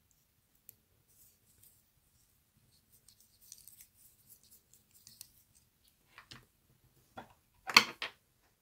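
Small fly-tying scissors snipping, the loudest cuts as a quick double snip near the end. Before them, faint rustling and ticking as the thread and wire are handled at the vise.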